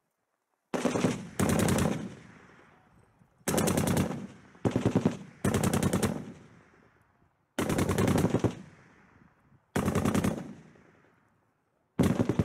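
Eight short bursts of automatic gunfire, each about half a second of rapid shots with an echo fading after it, spaced about one to two seconds apart. The first burst comes about a second in.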